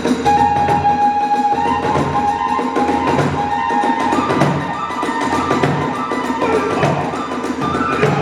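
Hiroshima kagura hayashi ensemble playing: a bamboo transverse flute holding high notes over a steady big-drum beat of nearly two strokes a second, with quick clashing of small hand cymbals.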